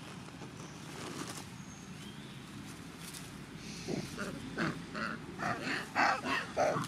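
Long-tailed macaque calling: a quick run of about eight short calls that starts about four seconds in, with the loudest near the end.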